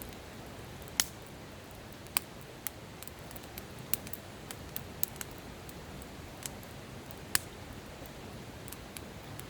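Campfire crackling: wood snapping and popping in irregular sharp cracks over a steady low rush of a river.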